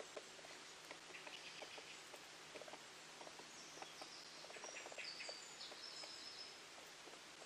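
Near silence: faint steady background hiss with a low hum, scattered soft clicks, and a few faint high chirps about halfway through.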